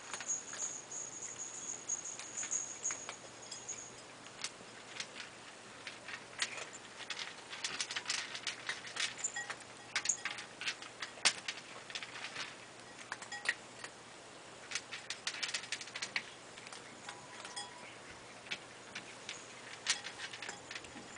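Cats eating together from one dish: a run of quick, irregular clicks and smacks of chewing and licking. A thin, steady high-pitched tone sounds at the start and stops about four seconds in.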